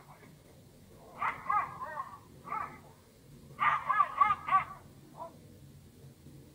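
Small dog yapping in quick runs of high-pitched, rising-and-falling yelps, in a few separate bursts with the loudest run about three and a half seconds in.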